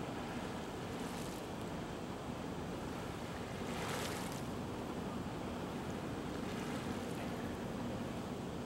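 Choppy harbour water washing and wind buffeting the microphone, a steady rush of noise with a faint low hum under it. A brief louder gust of hiss about four seconds in.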